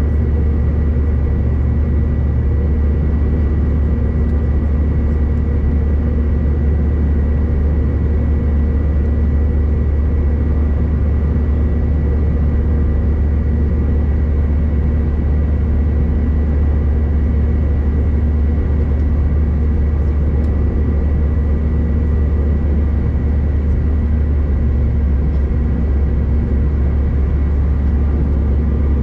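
Steady cabin noise of a Bombardier CRJ-900 airliner, heard from inside the cabin: the rear-mounted GE CF34 turbofans give a constant deep rumble with a thin steady whine above it, and the sound does not change.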